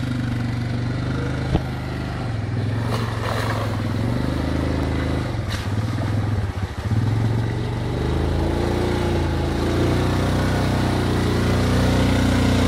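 Yamaha Grizzly ATV's single-cylinder engine running steadily as the quad drives through a muddy puddle toward the microphone, growing louder and picking up revs in the second half. A single sharp click sounds about one and a half seconds in.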